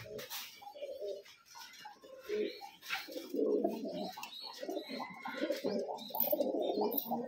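Domestic pigeons cooing, several low coos overlapping, growing denser and louder from about three seconds in.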